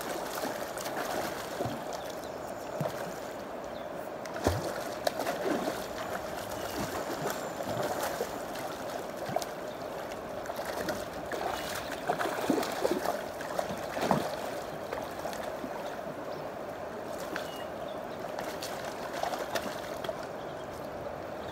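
River water running over a rocky bed, a steady rushing flow, with a few brief gurgles and small splashes scattered through it.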